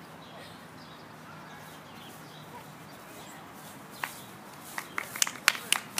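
Quiet outdoor background with faint bird chirps, then from about four seconds in a quick, uneven run of sharp taps and clicks: shoes stepping onto a flagstone path.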